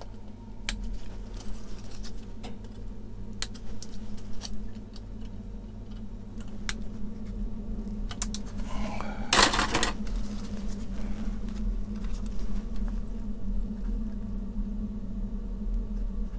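Small scattered clicks of hard plastic kit parts being cut from the sprue with sprue cutters and handled on a cutting mat. There is one louder brief rustling scrape a little over nine seconds in, over a steady low hum.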